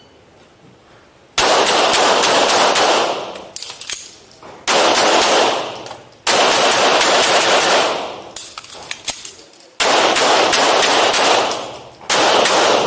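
Pistol fired in five quick strings of shots, each string made of several sharp cracks run together, with long reverberation off the walls of an indoor range.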